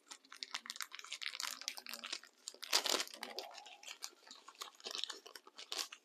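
Wrapper of a small accessory package crinkling and crackling in the hands as it is opened, with a louder crackle about three seconds in.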